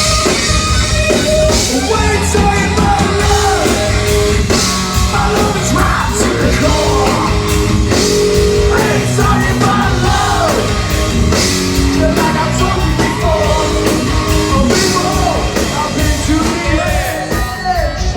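Live hard-rock band playing loud, with distorted electric guitar, bass and drums.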